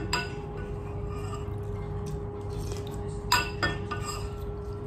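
Metal kitchen utensil clinking against a steel bowl, with a clink at the start and two sharp ringing clinks in quick succession a little past the middle, over a steady hum.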